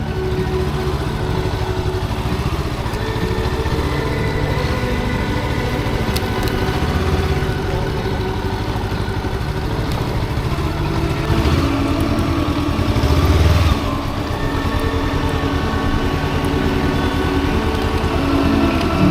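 Motorcycle engine running while being ridden, louder and climbing from about eleven seconds in, then easing off suddenly near the fourteen-second mark.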